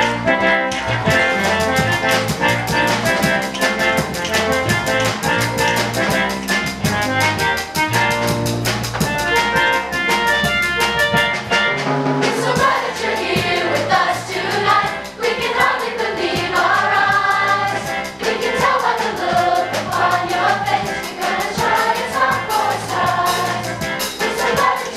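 Swing choir performance: an instrumental accompaniment with a steady drum beat plays for about twelve seconds, then the mixed youth choir comes in singing over it.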